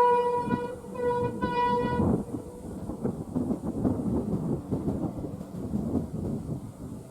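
Horn of a WDP-4D diesel locomotive sounding: a held note that breaks just under a second in, then two short blasts ending about two seconds in. After the horn, the train's uneven rumble and clatter as it runs at speed.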